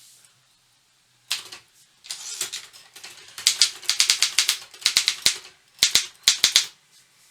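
Optima Elite-3 manual typewriter being typed on: a quick, irregular run of sharp type-bar strikes starting about a second in, in short bursts with brief gaps, stopping shortly before the end.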